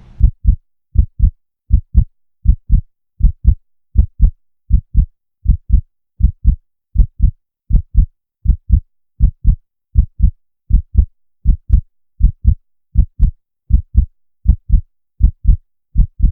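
Heartbeat sound effect: steady lub-dub pairs of low thumps, about eighty beats a minute, with silence between the beats.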